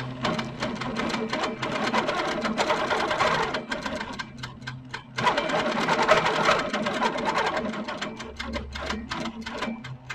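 Sit-down longarm quilting machine stitching free-motion at speed: a steady motor hum with rapid needle strokes. It eases off briefly about four seconds in, picks up again, and slows toward the end as a feather stem is sewn.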